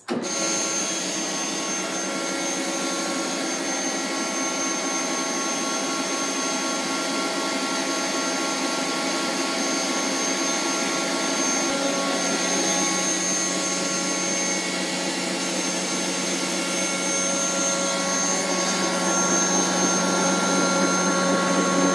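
Electric stand mixer running steadily at speed, its whisk beating egg whites to stiff peaks.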